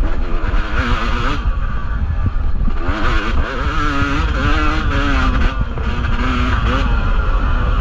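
Yamaha two-stroke dirt bike engine running hard off-road, its pitch rising and falling every second or so with quick throttle changes, over a constant low rumble.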